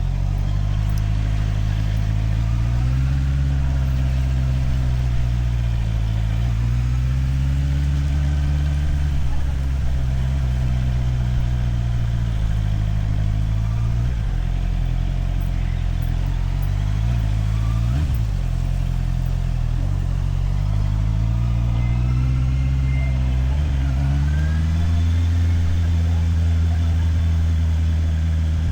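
Motorcycle engine running under way, picked up by a helmet camera, its pitch rising and falling several times as the bike accelerates and eases off, and held higher near the end.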